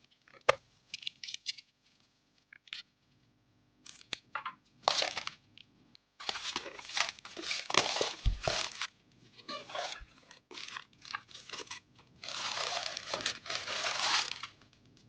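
Hands working with packaging or plastic film during a PC build: irregular crinkling and tearing with a few sharp clicks, and a longer continuous tearing or peeling sound about twelve seconds in.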